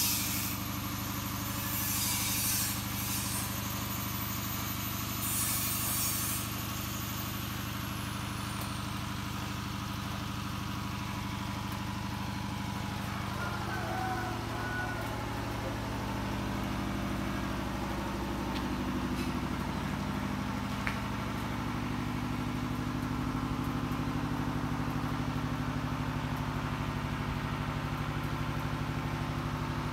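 An engine running steadily at idle, a low even hum whose pitch shifts slightly about halfway through. Brief bursts of hiss come in the first few seconds.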